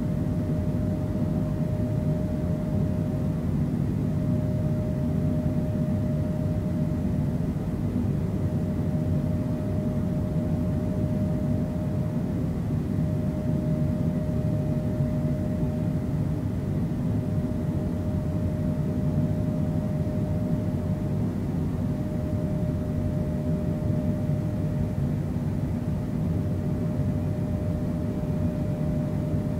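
Steady jet-engine and airflow noise heard inside a Boeing 767's cabin beside the wing, with a steady mid-pitched hum over it and no change throughout.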